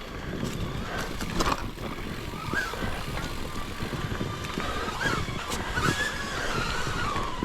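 Bike riding along a forest singletrack: steady tyre and trail noise with scattered small knocks and rattles, and a thin whine that wavers in pitch.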